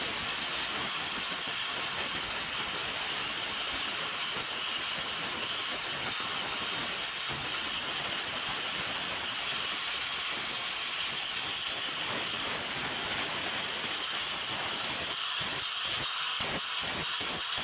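Angle grinder with an abrasive disc grinding rust off an old steel razor blade: a steady high grinding hiss over the motor's whine. Near the end the grinding turns choppy, pulsing rapidly.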